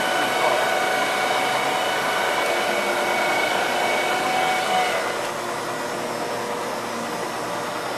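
Steady hum and hiss of running machine-shop machinery, with a multi-tone whine that stops about five seconds in, leaving a quieter even hiss.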